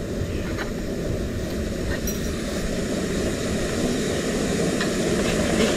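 Strong wind buffeting the microphone: a steady low rumble with a few faint clicks.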